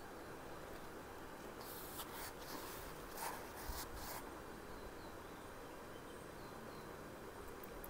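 Paper rustling from a paperback book being handled, a few short rustles between about two and four seconds in, over quiet steady room hiss, with a few faint high chirps later on.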